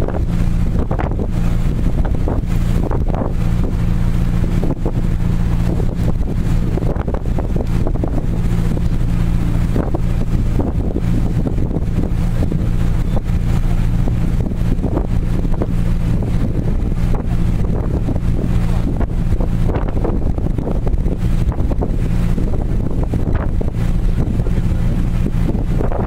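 Ferry's engine running with a steady low drone, with wind buffeting the microphone over it.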